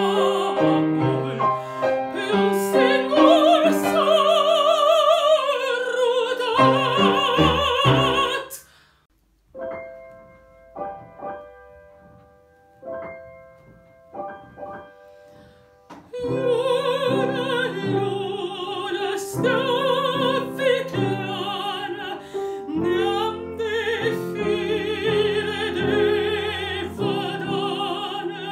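A mezzo-soprano singing a Romanian art song with wide vibrato over piano accompaniment. About eight seconds in the voice stops and the piano plays a few chords alone, then the singing resumes with the piano about halfway through.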